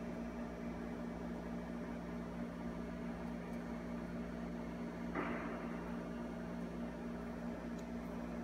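Steady low electrical hum over a faint hiss, with a brief rustle about five seconds in.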